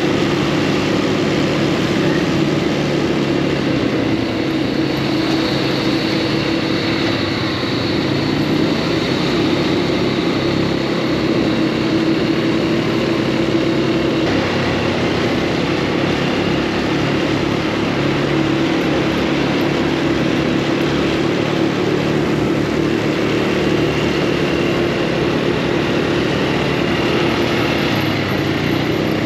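Off-road buggy engine running steadily under way, its pitch shifting a little as the speed changes.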